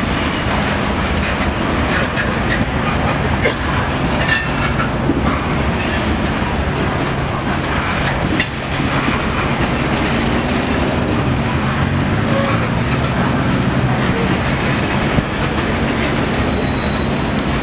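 Freight train's covered hopper cars rolling past: a steady rumble of steel wheels with clickety-clack over the rail joints and a couple of sharp knocks. A thin, high wheel squeal rises for a few seconds in the middle.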